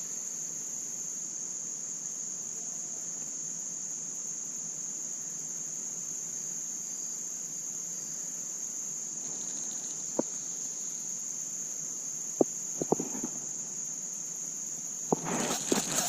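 Steady, high-pitched insect chorus, one unbroken drone, with a few sharp clicks in the second half.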